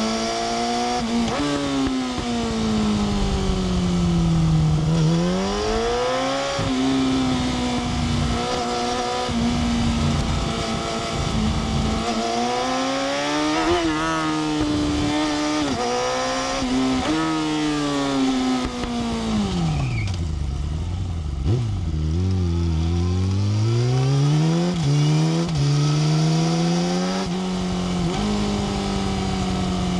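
Yamaha R6 inline-four engine heard from onboard, revving up and down through the gears, its pitch climbing and dropping in steps with the shifts. About twenty seconds in it falls to low revs, then pulls up steadily again.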